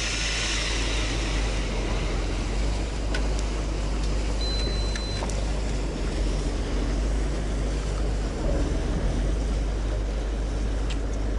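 Fishing boat's engine running with a steady low rumble under a hiss of wind and water. A brief high beep sounds about four and a half seconds in, and there are a few light clicks.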